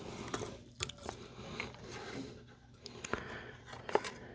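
Small clicks and light scratching of sterling silver wire being bent and wrapped by hand around a pendant bail, with a few sharp ticks.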